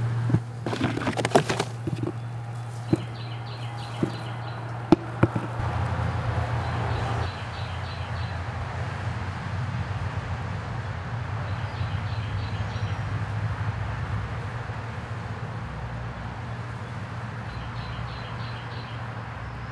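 A steady low buzz of blowflies swarming over a bin of pupae. Several sharp clicks come in the first few seconds, and a bird chirps in short bursts a few times.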